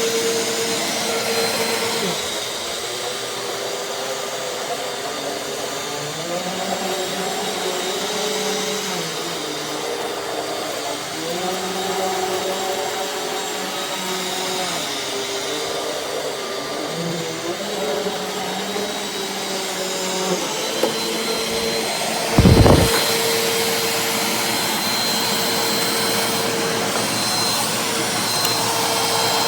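Eureka AirSpeed bagless upright vacuum cleaner running, a steady motor whine with rushing air; its pitch shifts up and down several times in the middle. A single thump comes about two-thirds of the way through.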